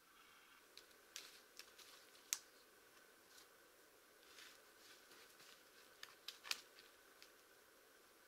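Faint, scattered clicks and light rustles of a long wooden pole being handled against pine trunks, with footfalls on dry pine-needle litter. Two sharper clicks stand out, about two seconds and six and a half seconds in.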